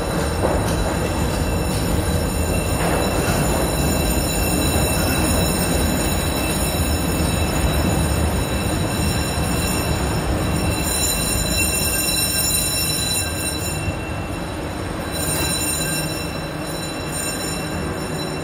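Fiat subway train heard from its cab, running slowly on shop track: a continuous rumble of wheels and running gear with steady high-pitched whines, a little quieter near the end. The crew suspect only one of the motor cars is pulling, which keeps the train slow.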